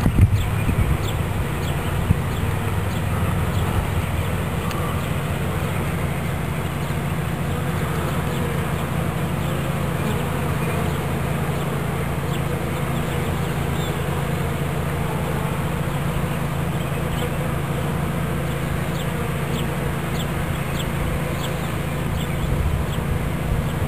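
A swarm of honey bees buzzing in a steady, dense hum.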